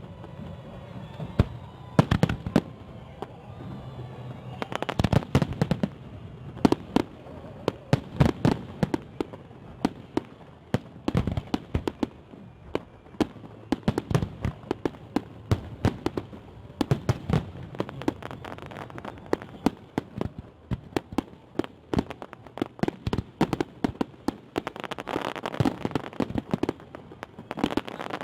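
A fireworks salute going off: a dense, irregular run of bangs and crackling pops, several a second, with clusters of louder blasts.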